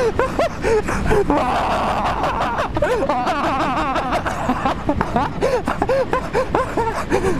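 Riders' voices shrieking and laughing, wobbling in pitch, over the steady rumble of a wheelbob running down the bobsleigh track.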